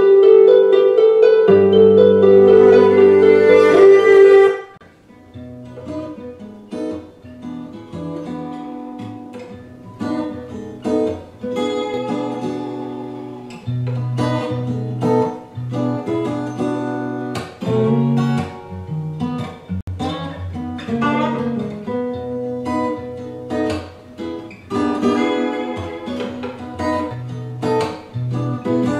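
Music played back on a Bose Acoustimass 5 speaker system. A loud plucked-string passage stops abruptly about four and a half seconds in, followed by quieter acoustic guitar picking.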